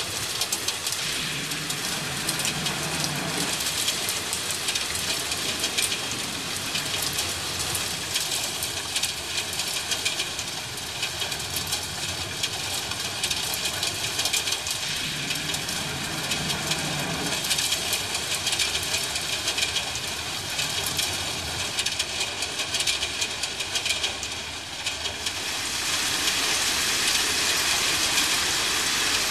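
Steady rain, with two low rolls of distant thunder, one about a second in and one about fifteen seconds in. The rain grows louder near the end.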